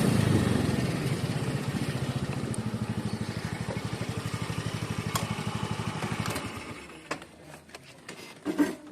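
A motorcycle engine running with a rapid, even beat that slowly weakens and dies away about six to seven seconds in, followed by a few faint clicks and knocks.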